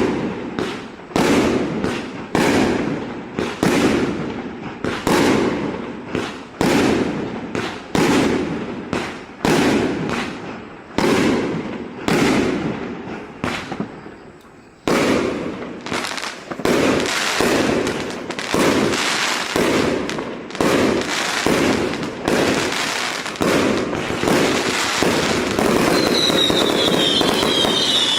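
Consumer firework cake (148-shot battery, 0.8 to 1.2 inch calibres) firing: sharp launch-and-burst bangs about once a second, then after a brief lull midway the shots come faster and run together into a dense, steady crackle near the end, with a falling whistle at the very end.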